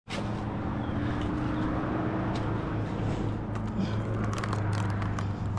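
An engine running steadily at constant speed, with a few light clicks over it.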